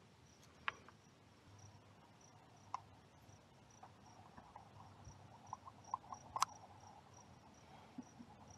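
Faint, evenly repeated high chirping of an insect, a few chirps a second. Over it come scattered light clicks of small hand tools and oil-filter parts being handled, the sharpest about six seconds in.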